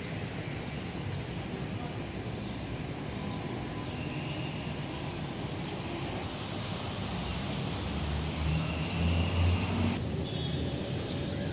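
Steady low rumble of distant road traffic, swelling louder about eight seconds in.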